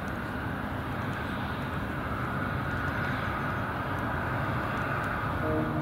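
Aircraft engine noise: a steady rumble and hiss with a faint whine. Music comes in near the end.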